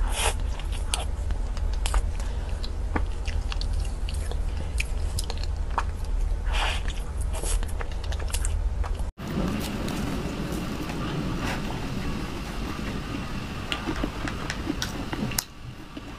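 Close-miked chewing and wet mouth sounds of someone eating soft chocolate lava cake from a spoon, many small clicks of lips and tongue over a steady low hum. About nine seconds in it cuts to another recording of someone chewing a macaron.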